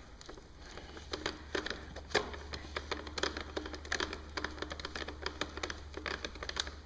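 Irregular light clicks and taps of an Allen key turning a screw into a motorcycle fairing bracket, with small metal parts being handled.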